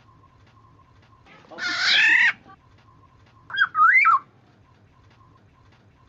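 Black-naped oriole (kepodang) calling: a harsh, drawn-out call lasting about a second, then about a second later a short, liquid whistled phrase that loops up and down. A faint steady tone runs underneath.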